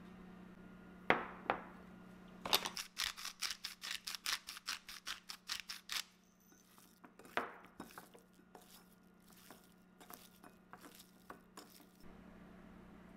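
A black pepper container is worked over raw pork slices in a quick run of sharp clicks lasting about three and a half seconds, after two knocks at the start. Then comes a single knock and lighter, scattered clicking and rustling as the seasoning is rubbed into the meat by hand.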